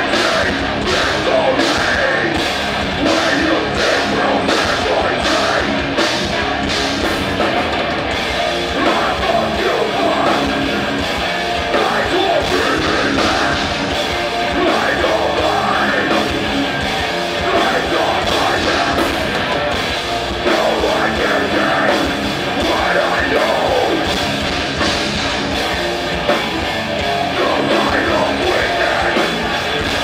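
Live punk band playing loud distorted rock with a full drum kit and vocals. For the first several seconds the drums hit a steady beat about twice a second, then the playing grows denser.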